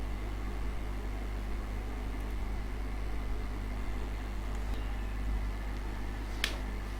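Steady low electrical hum, with a single sharp mouse click about six and a half seconds in.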